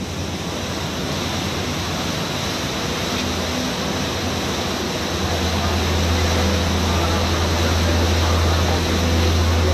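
Canal tour boat's engine running with a steady low drone under a wash of water and hull noise, heard from inside the cabin. It grows a little louder about halfway through.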